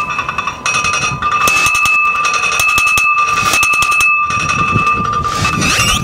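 Cast-iron storm-drain grate struck again and again from below by electromagnetic bell hammers, ringing like a bell with two steady tones, one high and one higher. A quick flurry of strikes comes about a second in.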